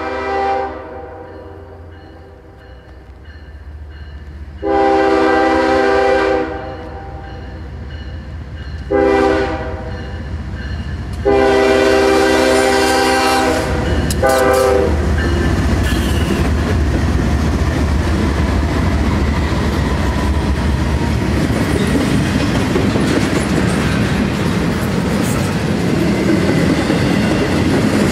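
Horn of a Norfolk Southern GE diesel locomotive sounding for a grade crossing. The tail of one long blast ends about half a second in, then come a long, a short and a final long blast. The three GE locomotives then pass close with a heavy engine rumble, followed by the steady clickety-clack and rattle of the double-stack well cars rolling over the rails.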